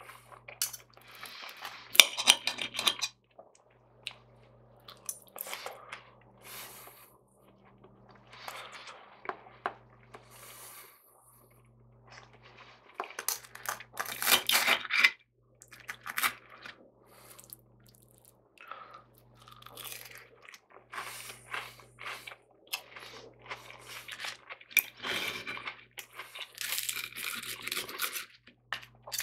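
Knife and fork scraping and clicking against a china plate while cutting fried breakfast food, with bouts of crunchy chewing. The sounds come in irregular spells with short quiet gaps between.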